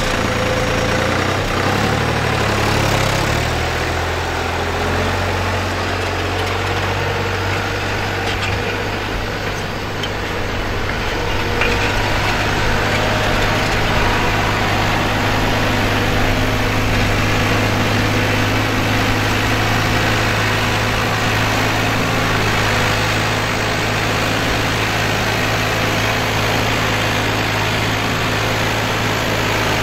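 Case IH JX70 tractor's diesel engine running steadily under load while pulling a four-furrow spring-reset plough through the soil. The engine pitch shifts briefly in the first few seconds, then holds steady.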